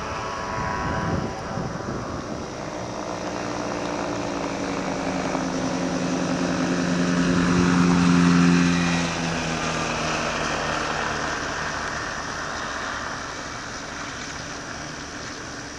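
Challenger II ultralight plane's engine and propeller droning, growing louder to a peak about eight seconds in and then fading.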